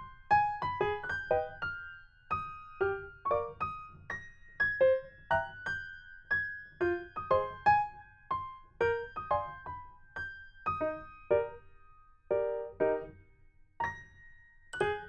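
Background music: light, bouncy keyboard or electric-piano tune of short, quickly decaying notes in a steady rhythm.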